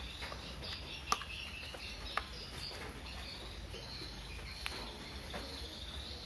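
A few sharp clicks, the loudest about a second in, another about two seconds in and one near the five-second mark, as a 3.7-volt lithium-ion cell is pressed into the spring-loaded slot of a LiitoKala battery charger. Behind them runs a steady high chirring of insects.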